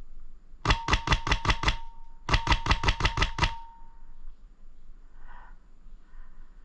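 Airsoft gun firing two quick strings of shots, about seven shots each at roughly six or seven a second, with a faint whine under the shots.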